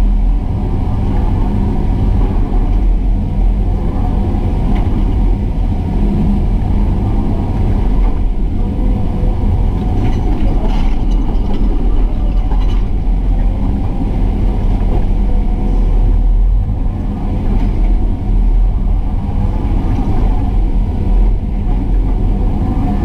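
Excavator's diesel engine running steadily at working speed, a heavy low rumble with steady tones above it.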